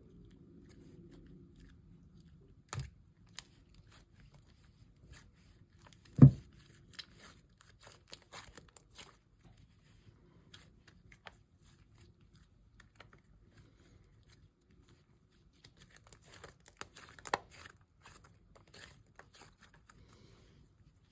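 Butter slime being kneaded and stretched by hand, making scattered sticky clicks and pops. A sharp thump comes about six seconds in, and a quick flurry of pops near the end.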